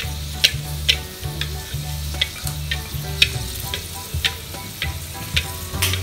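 A large fish cracker (kerupuk) sizzling in hot oil in a wok, with sharp ticks several times a second as a spatula presses and turns it.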